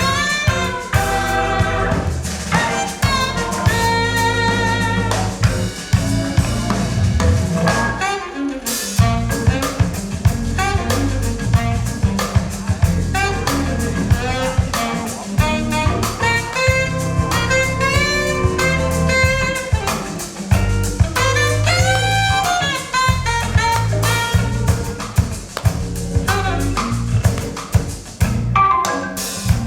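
Lively jazz with saxophone and drum kit, played from a vinyl record over Sonus Faber Aida 2 SE hi-fi loudspeakers.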